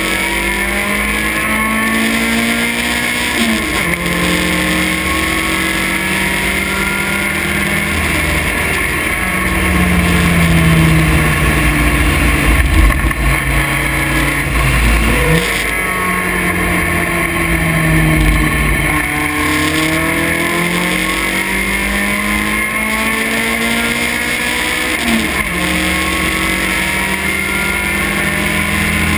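Vintage race car's engine under racing load, heard from the open cockpit. Its pitch climbs and falls as the car accelerates and slows. The pitch drops sharply at upshifts about three seconds in and near the end, with a quick jump in revs about halfway through.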